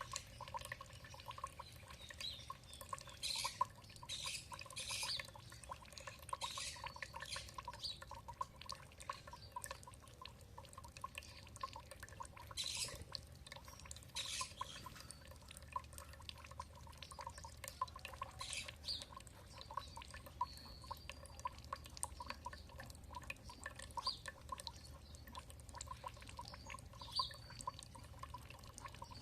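Water trickling and dripping in a steady patter, with songbirds giving short high chirps and trills now and then over it.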